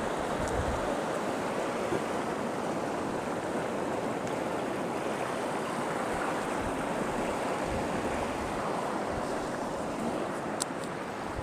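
Sea surf washing on a sandy beach: a steady, even rushing sound.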